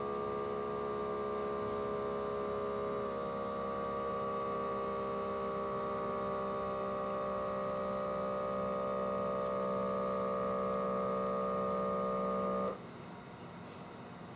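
Omron M10-IT blood pressure monitor's small electric air pump inflating the arm cuff with a steady hum, its pitch shifting slightly about three seconds in, then stopping suddenly near the end as the cuff reaches its inflation pressure.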